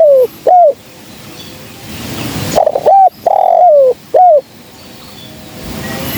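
Spotted dove cooing: the end of one phrase, then about two and a half seconds in a full phrase of a short coo, a longer falling coo and another short coo.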